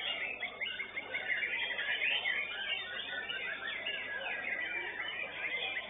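White-rumped shamas (murai batu) singing, a dense chorus of fast overlapping whistles and trills from the competing birds.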